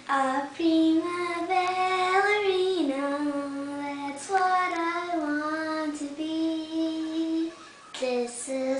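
A young girl singing slow, long-held notes that step up and down, with a short break about eight seconds in.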